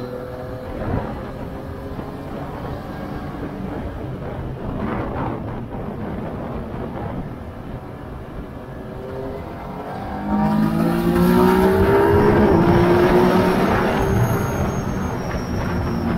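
Yamaha Tracer 900 GT's 847 cc inline-three engine on a track lap, running at part throttle through a long leaning corner. About ten seconds in the throttle opens: the engine gets much louder and the revs climb, with a quick drop in pitch a couple of seconds later as it shifts up.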